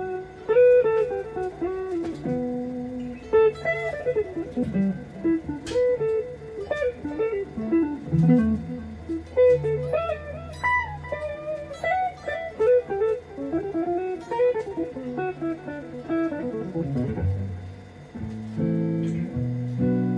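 Fender Squier electric guitar playing a single-note lead line, with string bends and slides and a low note held beneath it at times. In the last few seconds it moves to lower, chord-like notes.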